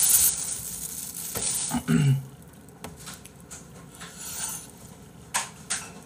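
Thin clear plastic bag crinkling as it is pulled and handled for about the first second and a half. A short voiced sound follows about two seconds in, and two light clicks come near the end.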